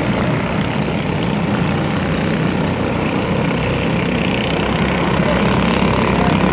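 A field of junior sprint cars' small engines running together in a steady drone as the cars circle the dirt track.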